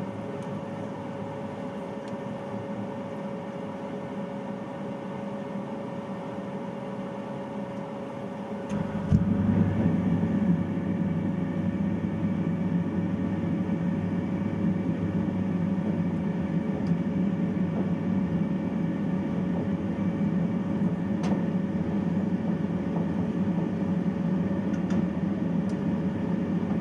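Gas water-heater boiler in a bathroom: a steady hum with a faint tone, then about nine seconds in a click and a louder, low, steady rumble as the burner fires up.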